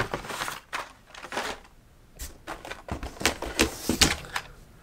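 Hot Wheels blister cards and cardboard being handled: a run of light plastic clicks and knocks with some rustle as carded cars are set down and pulled out of a cardboard case. The clicks come thicker in the second half.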